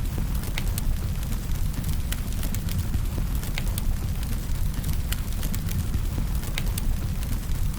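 Wood fire burning: irregular sharp crackles and pops, about a dozen here, over a steady low rumble of the flames.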